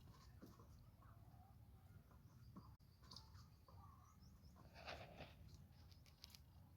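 Near silence: a faint low hum with a few brief, soft sounds, the clearest about five seconds in.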